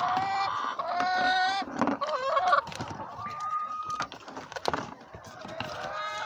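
Chickens calling in the coop: a run of drawn-out, pitched calls over the first couple of seconds, then a single higher held note about three seconds in. A couple of sharp knocks follow.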